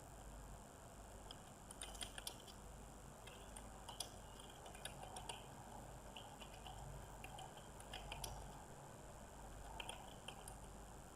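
Faint, irregular clicking of computer keyboard keys being typed on, over a low steady hiss.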